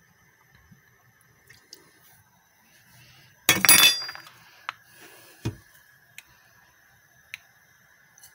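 Kitchen utensils clinking as rice wine vinegar is measured into a bowl for a dipping sauce: a sharp, ringing clink about halfway through, then a duller knock a couple of seconds later, with a few light ticks over a faint steady hum.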